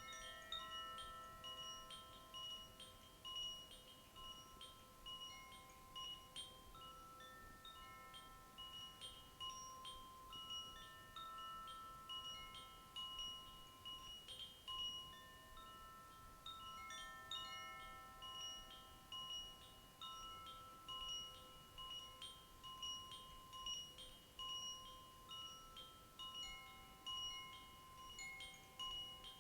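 Wind chimes ringing gently and continuously: many overlapping notes are struck and left to ring, with quick light strikes in the upper notes.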